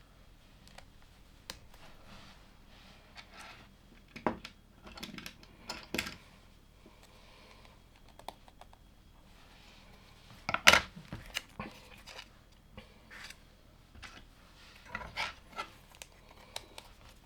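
LEGO plastic pieces clicking and rattling as they are handled and pressed together, in scattered short clicks with a louder cluster about ten and a half seconds in.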